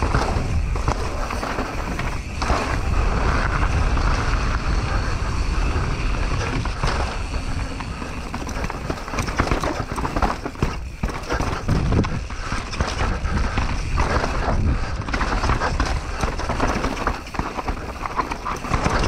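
Mountain bike descending a rough, rocky trail: a continuous rush of wind on the microphone and tyres rumbling over dirt and rock, with frequent knocks and rattles as the bike hits stones.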